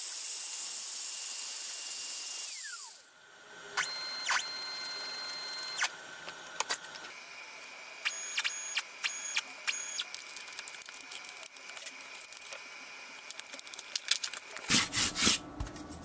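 A CNC router's spindle motor running with a steady whine, then switched off about two and a half seconds in, its pitch falling quickly as it spins down. Nema 17 stepper motors then drive the gantry in several short moves, each a steady pitched whine that starts and stops abruptly. A few loud knocks follow near the end as the carved wooden plaque is handled.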